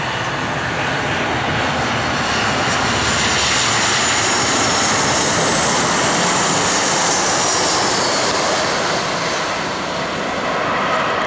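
Boeing 737 airliner's jet engines running as it lands close by, a steady loud rush of engine and air noise. A high engine whine falls in pitch over several seconds in the middle.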